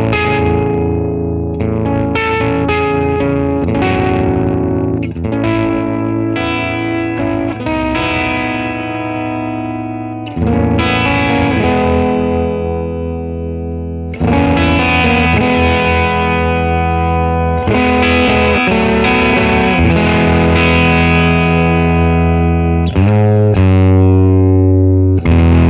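Electric guitar played through a distortion pedal, the Mattoverse Solar Sound: chords and notes struck one after another and left to ring out with long sustain, getting louder about halfway through.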